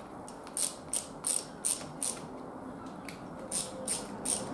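Socket ratchet clicking as it tightens down the rocker assembly nuts on the cylinder head. There is a quick run of about five strokes, a pause of about a second and a half, then three more near the end.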